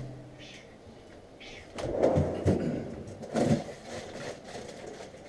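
Muffled rustling and bumps from a chest-mounted action camera rubbing against a dog's thick fur and harness as the dog moves, in a few irregular bursts between about two and four seconds in.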